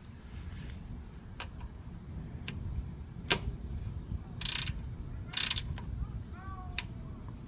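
3/8-inch ratchet and torque wrench being worked in short ratcheting strokes, with scattered sharp clicks and two short rattling runs of the pawl, as a bolt is tightened toward its 10 ft-lb setting.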